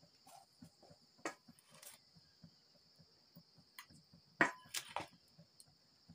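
A small steel cup scraping through wheat flour and clinking against stainless steel bowls as flour is scooped from one bowl and tipped into the other. There are a few sharp clinks, the loudest about two-thirds of the way through, over a steady high insect trill.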